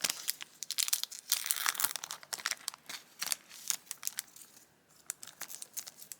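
Crinkling of a foil Yu-Gi-Oh booster pack wrapper being handled and opened, a dense run of crackles that thins out toward the end.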